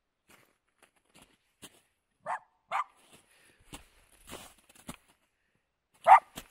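A dog barking three short times in play: two quick barks about two seconds in and a louder one near the end. Soft crunching steps on snow come in between.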